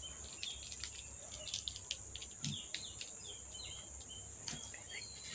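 Steady high-pitched drone of insects, with many short bird chirps and little whistles scattered through it.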